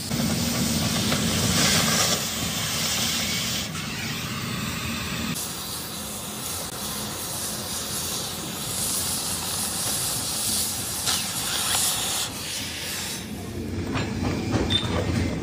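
Oxy-fuel cutting torch hissing steadily as its jet cuts through a flat steel bar. The hiss eases near the end.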